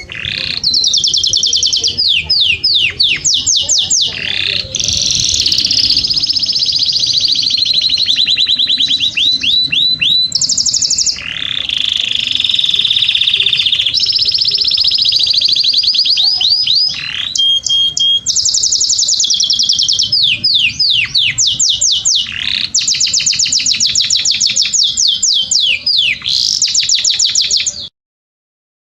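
Domestic canary singing a long, loud song of rapid high trills and runs of repeated notes, changing tour every few seconds; the song cuts off suddenly near the end.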